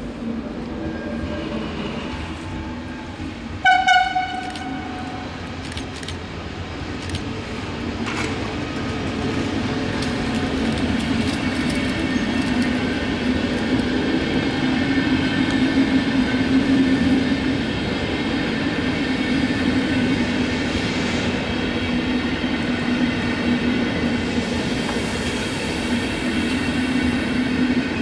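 A passenger train hauled by electric locomotives rolls slowly past, and a locomotive horn gives one short blast about four seconds in. The rumble and clatter of the passing coaches then build up and hold steady, with a faint whine running through them.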